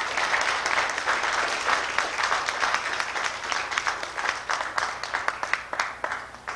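Audience applauding, a dense patter of many hands clapping that thins to a few separate claps and stops near the end.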